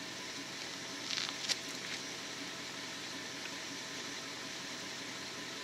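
Dodge Ram 1500 V8 pickup idling steadily as the running donor truck on jumper cables, with a few light clicks and rustles about a second in.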